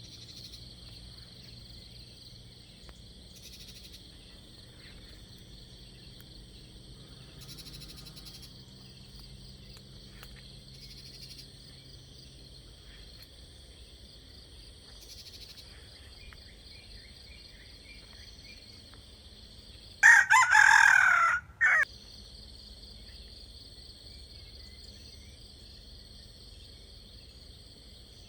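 A rooster crows once, loudly, about two-thirds of the way in, over a steady high-pitched chorus of insects.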